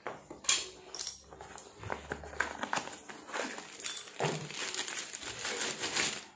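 Clear plastic bag crinkling around a pillow block bearing as it is picked up and turned in the hand. Several sharp knocks and clinks come from metal bearing housings and pulleys being moved about, the loudest about half a second, one second and four seconds in.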